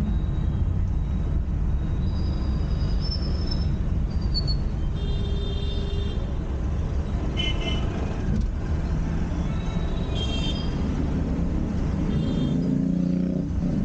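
Dense city traffic heard from inside a slow-moving car: a steady low engine and road rumble, with several short vehicle horn toots scattered through.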